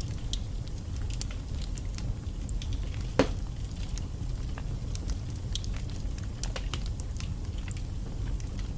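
Wood fire burning in a fireplace: a steady low rumble of flames with scattered sharp crackles, and one louder pop about three seconds in.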